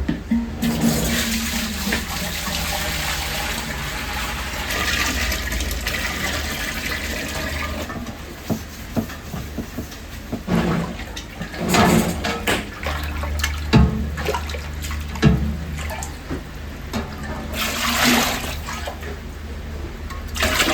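Water running from a tap for several seconds, then scattered knocks and clatter, with a second short gush of water near the end.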